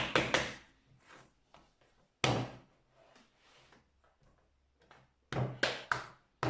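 Hands slapping and thumping a block of clay on a tabletop: a few quick slaps at the start, a single heavier thud about two seconds in, and a quick run of slaps near the end.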